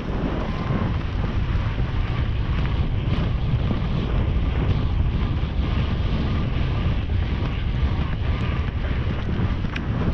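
Steady wind buffeting the microphone of a GoPro worn by a horse's rider, from the horse's speed across open ground, with a low rumbling rush.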